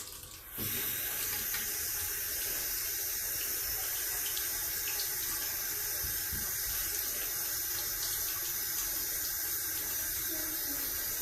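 Bathroom sink tap running steadily into the basin, the flow settling in about half a second in.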